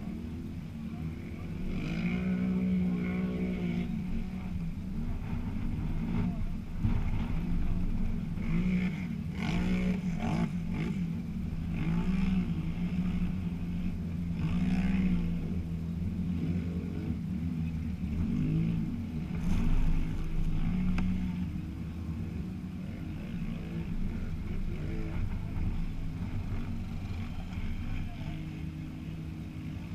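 ATV engines idling, with engines revving up and down several times.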